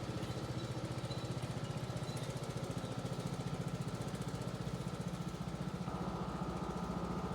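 Riding lawn mower engine running steadily, a continuous fast-pulsing engine note, with a thin high whine that grows slightly stronger about six seconds in.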